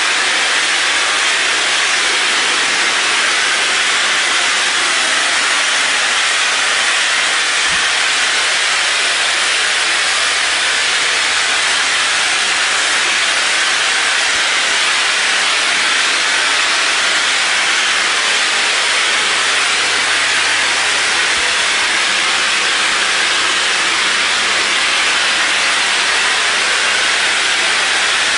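Hose-fed spray gun spraying wet spackle onto a wall: a steady, unbroken hiss of air and spray.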